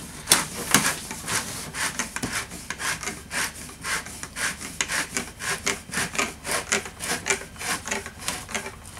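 Maypole's plastic threaded sleeve being screwed by hand into its plastic base: repeated short rasps of plastic grinding on plastic, about two or three a second, one with each twist as the sleeve tightens over the last few turns.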